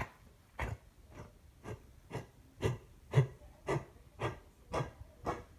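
A dog coughing in a steady run of short, rough hacks, about two a second.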